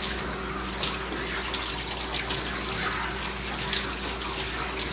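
Water spraying from a grooming tub's hose nozzle onto a wet dog's coat during a rinse: a steady hiss with a few brief surges, over a faint steady low hum.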